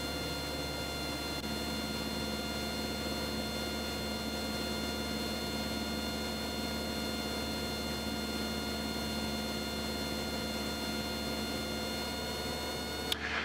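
Cessna 172's piston engine and propeller droning steadily in the cabin, a constant hum with several fixed tones. There is a brief click near the end.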